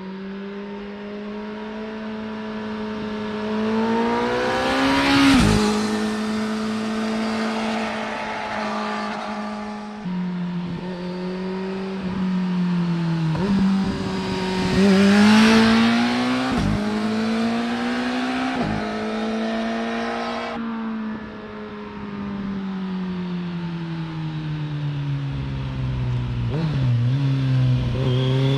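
2020 Kawasaki Z900's inline-four through a LeoVince LV10 slip-on exhaust, riding past repeatedly. It is loudest on passes about five and fifteen seconds in, where the engine note drops in pitch as the bike goes by, and it builds again near the end.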